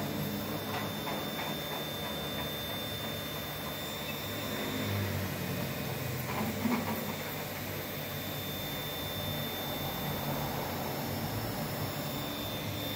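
Arduino-controlled mini CNC router running a test program: its stepper motors drive the spindle head across the bed, with low motor tones that shift in pitch as each move changes. A thin, steady high whine runs over them.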